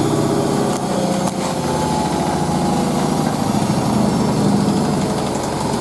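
Hoover A3060 Electronic 1100 washing machine spinning: a steady motor hum with a fast, rhythmic throb from the spinning drum and vibrating cabinet.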